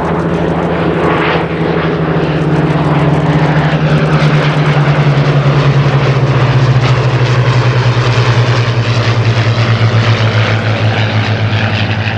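Rolls-Royce Merlin V12 engines of a pair of Hawker Hurricane Mk I fighters flying past. The propeller drone slides slowly down in pitch as they pass and is loudest about halfway through. In the second half the loudness pulses with a beat.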